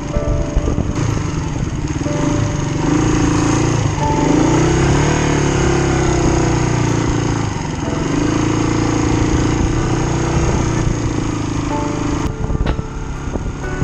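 Kawasaki KLR250 single-cylinder four-stroke dirt bike engine running under way, its revs rising and falling a few seconds in, then holding steady.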